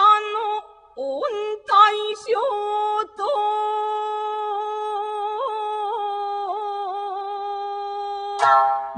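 A solo voice singing in a Japanese traditional style. Short phrases with bending pitch come first, then one long held note with small wavering ornaments from about three seconds in until near the end.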